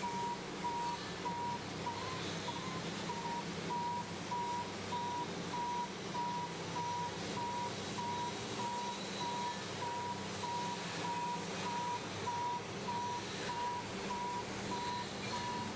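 Backup alarm beeping steadily, about two short beeps a second, over the hiss of water spraying from the wash arch's nozzles and a low steady running hum.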